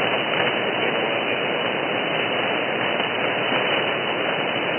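Shortwave band noise: a steady hiss of static from a receiver demodulating 6940 kHz in upper sideband, with no voice coming through.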